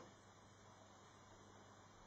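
Near silence with a faint steady hum and hiss: the quiet breath-pause between a sleeping cat's snores, one snore just trailing off at the very start.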